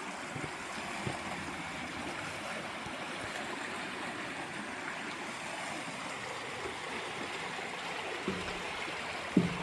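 Flowing stream water, a steady rushing and babbling.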